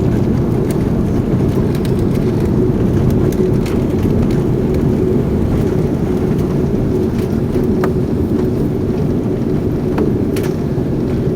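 Steady low rumble of an Airbus A330-300 heard from inside the passenger cabin during landing, with a steady engine hum and a few light clicks and rattles; it eases slightly near the end.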